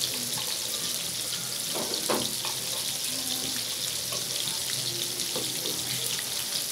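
Pieces of rui fish frying in hot oil in a pan, a steady sizzling hiss with fine crackles.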